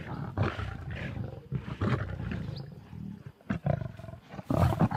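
Lions growling and snarling while squabbling over a kill, in a run of low, rough growls with the loudest snarls about four and a half seconds in.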